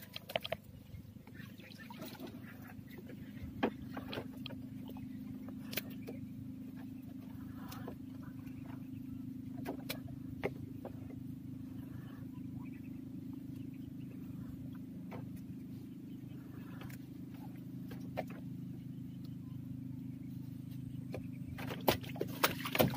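A small engine running steadily with an even low hum, with scattered clicks and knocks from handling gear in a wooden boat, more of them near the end.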